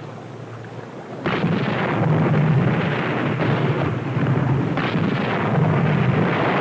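A submarine's 5-inch deck gun opens fire about a second in, followed by a continuing rumble of further shots and shell bursts, with sharp new blasts now and then.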